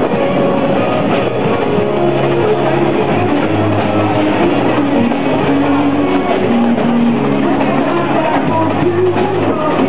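Music with held, changing notes, over steady background noise.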